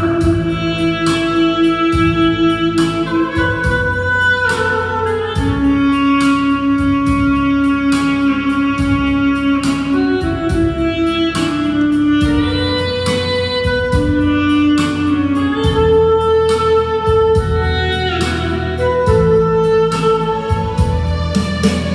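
Instrumental music: a melody of long held notes over a steady beat.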